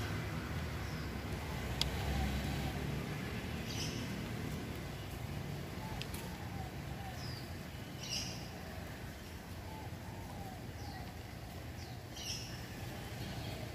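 Outdoor ambience of birds chirping, a short high call coming back every four seconds or so with fainter calls between, over a steady low rumble. One sharp click about two seconds in.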